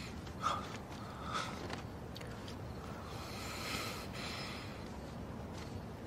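Faint short breaths through the nose and soft rustling as a gauze bandage is wrapped one-handed around an injured hand, with a longer rustle a little past the middle.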